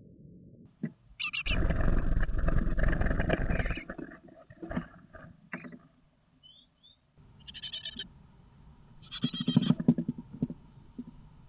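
Great tit nestlings on the point of fledging, heard through the nest box's own microphone: bursts of harsh calling mixed with scrabbling in the box. The loudest burst lasts about two and a half seconds, and several shorter ones follow.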